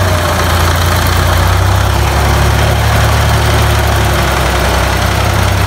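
Diesel farm tractor engine running steadily under load as it pulls a gravel-laden trailer through a stream, with water splashing around the wheels.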